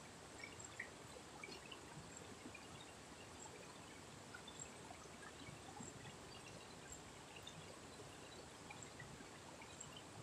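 Faint, steady rush of a river flowing over rocks and rapids, with scattered small ticks.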